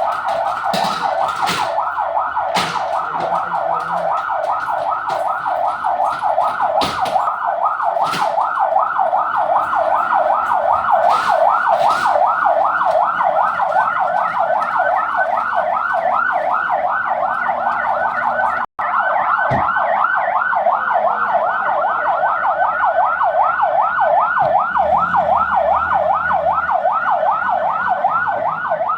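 Electronic siren sounding a fast, continuous yelp, rapid up-and-down sweeps several times a second, as the alarm for an earthquake drill. A few sharp knocks come in over it in the first dozen seconds, and it cuts out for an instant about two-thirds of the way through.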